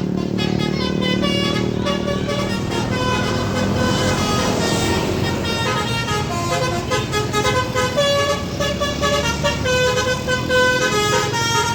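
Basuri melodic bus horn playing a tune of held notes that step from pitch to pitch, over the bus's engine running.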